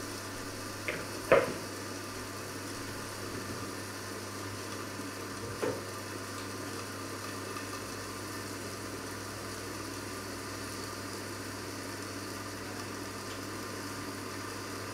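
Food cooking in lidded pots on an electric hob, sizzling steadily over a constant low hum. Two sharp knocks come about a second in, the second the loudest, and a softer one around six seconds.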